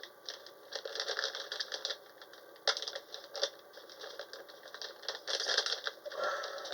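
Rapid clicking, rattling and crinkling of packaging being handled and pried at by hand, with a sharp snap nearly three seconds in. The package is a stiff one, hard to get open.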